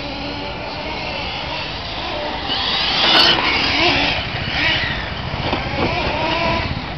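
Small nitro-engined radio-controlled cars racing past, their high engine whine rising and falling as they rev and go by. Loudest about three seconds in.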